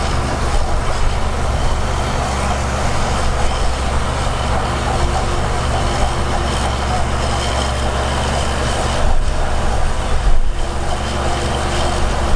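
Heavy diesel earthmoving machinery running steadily, its engine the main sound throughout, with a couple of louder moments near the end.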